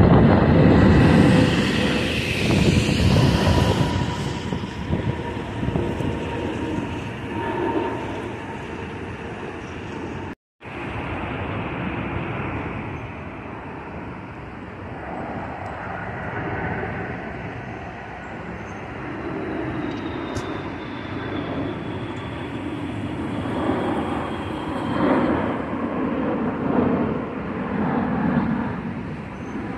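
Jet airliners on final approach passing low overhead: a loud rumble of jet engines that fades away, then after a brief dropout the rumble of a Turkish Airlines Airbus A330 on approach building again, with a faint high engine whine near the end.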